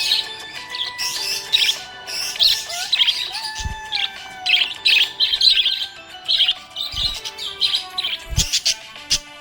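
Budgerigar chirping and warbling in rapid, dense clusters of high chirps, over background music with steady held notes and a few short low thumps.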